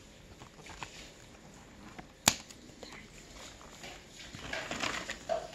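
Faint rustling of a plush toy and its cardboard tag being handled, with one sharp snip of scissors about two seconds in as the tag is cut off.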